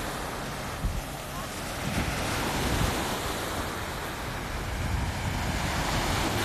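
Ocean surf washing on a beach, with wind buffeting the phone's microphone in irregular low rumbles.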